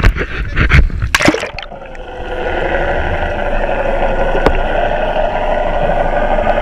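Splashing and rushing water as the camera plunges under the surface, then, from about two seconds in, the steady muffled whine of a boat motor heard through the water.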